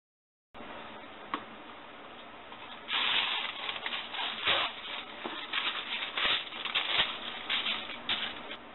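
Cooking parchment paper rustling and crinkling in irregular bursts as it is pulled from its box and spread over a metal oven tray.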